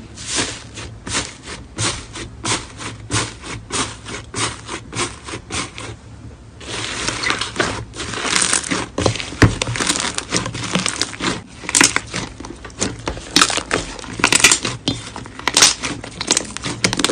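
Crunchy slime crackling as it is handled: evenly spaced crunches about three a second, then denser, continuous crackling from about six seconds in, stopping abruptly at the end.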